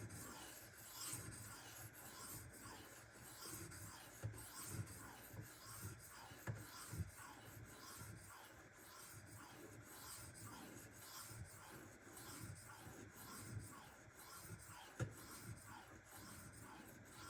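Steel knife blade being stroked across a Shapton Kuromaku 1500-grit whetstone: faint, repeated scraping strokes at about two a second, with an occasional sharper tick.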